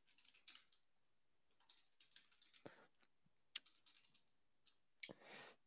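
Faint typing on a computer keyboard: scattered soft key clicks, with one louder click about three and a half seconds in.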